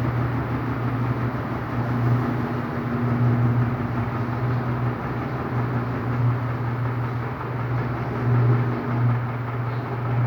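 Electrolux LTD13 top-loading washing machine spinning during the second rinse: a steady motor hum over the rush of the turning drum, swelling slightly now and then.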